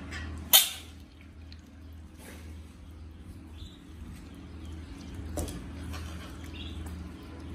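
Ducklings giving a few faint, short high peeps over a steady low hum, broken by a sharp, loud snap just after half a second in and a smaller one about five and a half seconds in.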